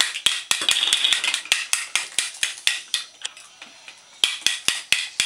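Chunky plastic toy bricks being banged hard with another brick and knocked apart: a quick, irregular string of sharp plastic clacks, about four a second, easing off briefly around three seconds in before picking up again.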